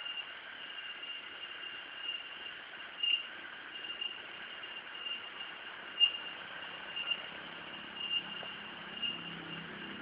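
Insects calling: a steady high-pitched drone that swells to a louder pulse about once a second.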